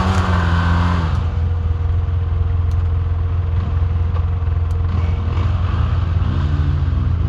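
ATV engine running, its pitch falling off in the first second, then revving up and easing back down again near the end.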